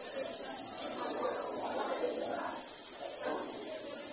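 Raw marinated meat and chicken sizzling on a tabletop electric grill plate, a steady high hiss, under faint background voices.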